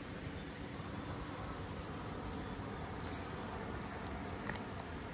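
Steady, high-pitched chorus of insects such as crickets droning without a break, over a low, even rumble.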